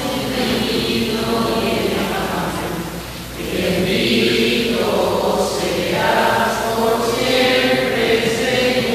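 A group of voices singing a slow hymn in a church during the offertory of the Mass, with a short break about three seconds in.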